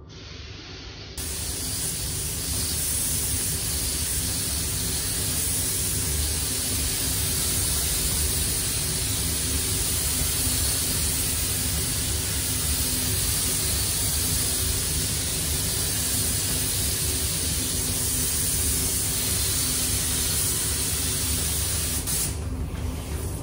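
Air-fed gravity spray gun hissing steadily as it sprays primer onto car panels. It starts about a second in and stops briefly near the end, over a steady low hum.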